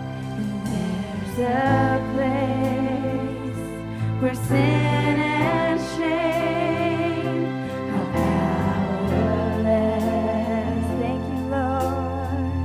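Live worship music: a band playing sustained chords under wordless sung or held melodic phrases.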